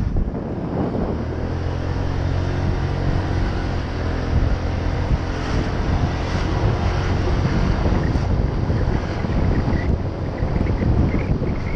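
Honda PCX 125 scooter's single-cylinder engine running at a steady cruise, its hum steady through the middle, under heavy wind buffeting on the microphone.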